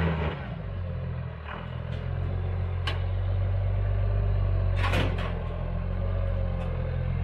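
A second-generation Dodge Ram pickup's engine runs steadily under light load as the truck crawls up steel ramps onto a flatbed trailer. A few sharp clunks come as it climbs, the loudest about five seconds in.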